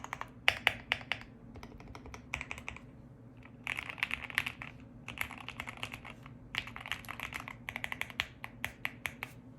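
Typing on a Qwertykeys QK65 mechanical keyboard with CannonKeys Lavender linear switches: quick runs of keystrokes clacking in bursts, with short pauses between them.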